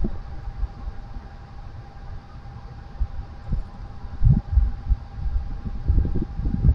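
Wind buffeting the microphone in uneven low rumbling gusts, strongest about four and six seconds in, over a faint steady hum.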